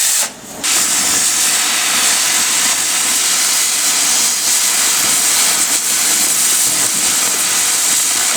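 A phone's lithium battery in thermal runaway, venting with a loud, steady jet-like hiss. The hiss dips briefly just after the start, then runs on and cuts off suddenly near the end.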